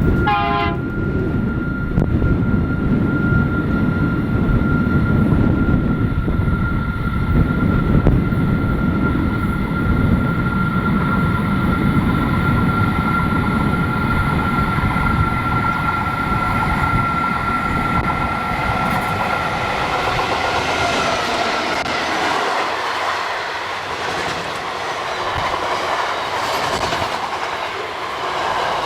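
Diesel freight train passing: a heavy low rumble with a steady high whine for most of the first two-thirds, giving way to the clatter of wagon wheels over the rail joints.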